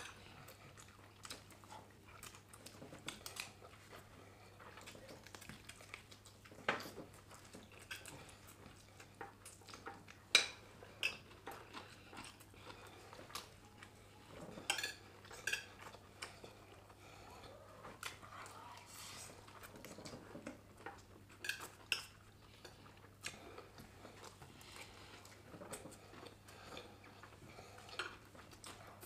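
Metal forks clinking and scraping against plates as two people eat, in scattered short, sharp clicks, the loudest about ten seconds in.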